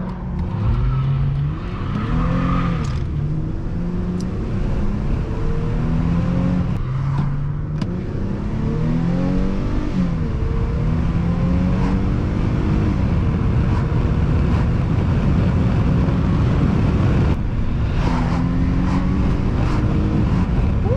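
Mercedes-Benz C350's 3.5-litre V6 pulling hard from first gear. The revs climb and drop back at each upshift through the first half, then hold steady at cruise for the rest.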